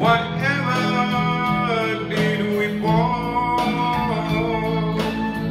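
Instrumental break of a slow ballad: a sunburst hollow-body electric guitar picked with a plectrum, playing a melody over sustained keyboard chords.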